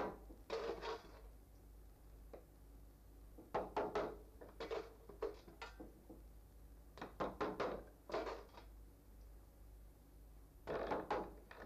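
Small hammer tapping thin nails through a fox pelt's tail into a wooden tanning board, in several short runs of quick taps with pauses between.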